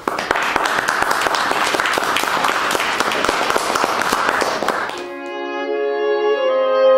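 Audience applauding for about five seconds, then cut off abruptly by instrumental music of slow, held chords.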